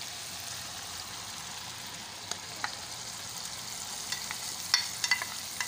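Onion-tomato masala sizzling steadily in hot oil in a frying pan. A few sharp clicks and scrapes from a spatula and bowl against the pan come in the middle, then more closely together near the end as boiled mash (urad) daal is scraped into the pan.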